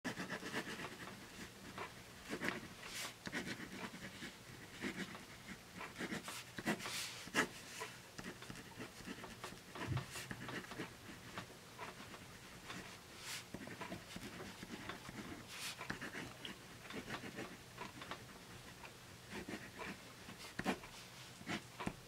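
A pen writing cursive on paper: faint, irregular scratches of the nib, one stroke after another.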